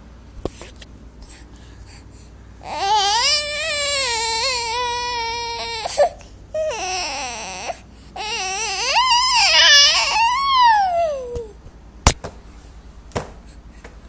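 Baby crying: two long cries with a short one between them, the last sliding down in pitch, then a single sharp click near the end.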